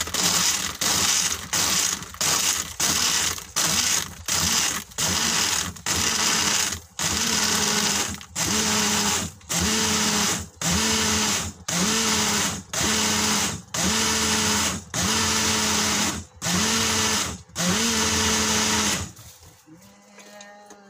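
Portable mini bottle blender pulsed over and over, its small motor whirring in bursts as it blends dragon fruit, ice and milk. The bursts come about twice a second at first, then lengthen to about one a second, each starting with a rising whine as the motor spins up. They stop a couple of seconds before the end.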